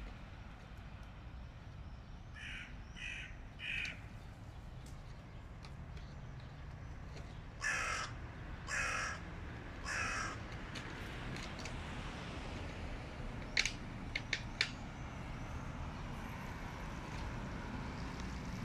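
Hooded crows cawing: a quick run of three short caws a few seconds in, then three louder, harsh caws about a second apart near the middle. A few sharp clicks follow a little later.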